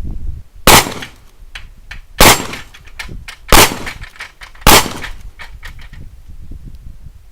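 Four gunshots about a second and a quarter apart, fired at a ringing mechanical alarm clock, its bell still clattering between the shots and dying away after the last one.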